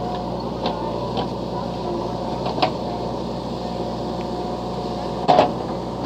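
JCB 3DX backhoe loader's diesel engine running steadily under load while the backhoe digs, with a few light knocks and one loud metallic clank near the end.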